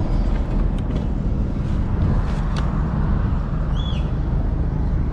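Small motorcycle running steadily while riding, with engine and road noise. A brief high chirp about four seconds in.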